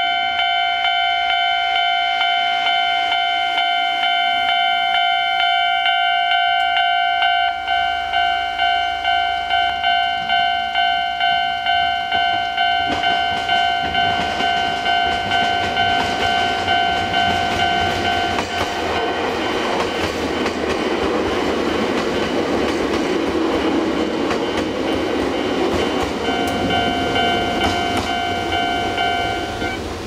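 Japanese level-crossing alarm ringing its steady electronic bell while a Chichibu Railway train passes over the crossing. The rumble of the passing train builds and for several seconds drowns the bell. The bell is heard again and stops just before the end as the crossing clears.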